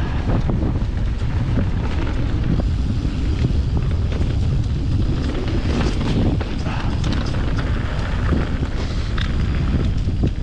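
Steady wind buffeting on the microphone, with scattered clicks and rattles from riding over rough trail.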